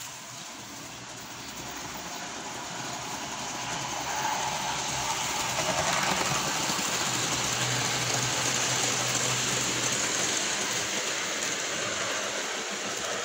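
Large-scale garden-railway model steam locomotive hauling passenger carriages along the track, its wheels running on the rails. It grows louder as the train comes past about four to six seconds in, with a low steady hum for a few seconds after.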